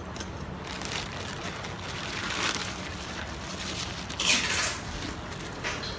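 A delivery package's wrapping being handled and torn open by hand, rustling and crinkling in irregular bursts, the loudest about four seconds in.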